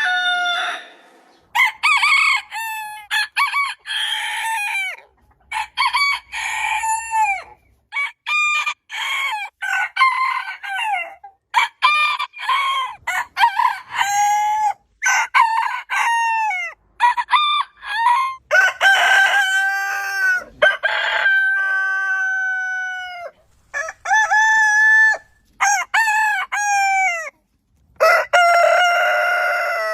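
Roosters crowing one after another, more than a dozen long crows that hold a pitch and then fall away, several breaking off abruptly, with shorter calls between.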